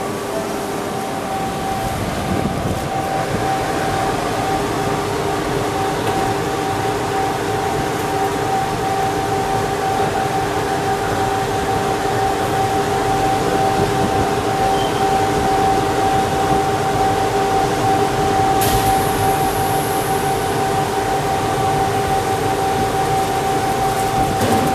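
Laboratory textile test equipment running: a steady machine hum with a constant mid-pitched whine over a rushing air noise. A brief high hiss comes about three quarters of the way through.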